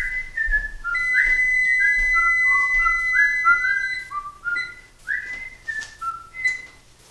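A whistled tune: a run of short notes, many sliding up into pitch, with one long held high note about a second in, falling silent near the end.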